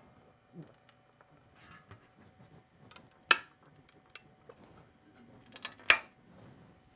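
A finished 3D print and its build plate being handled and removed from the printer: light scattered taps and clicks, with two sharp snaps about three and six seconds in.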